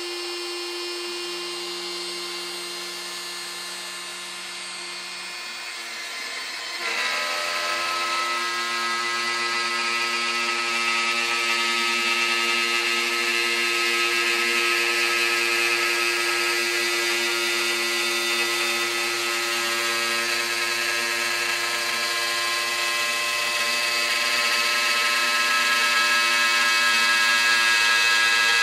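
Shapeoko XXL CNC's DeWalt router spinning a quarter-inch end mill with a steady high whine. About seven seconds in the sound grows louder and rougher as the bit starts cutting into the wood, routing out a circle in one deep pass.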